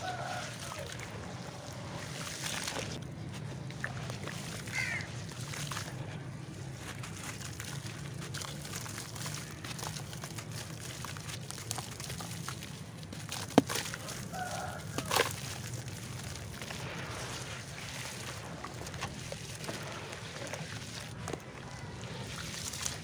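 Hands sloshing and squeezing wet clay in a tub of water, the lumps crumbling and dissolving with a steady gritty wash. A couple of sharp cracks a little past the middle.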